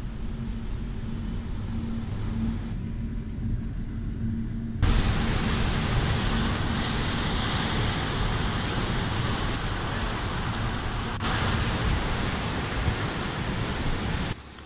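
A car driving on a road: steady tyre and engine noise with a low rumble and a faint steady hum, jumping louder about five seconds in.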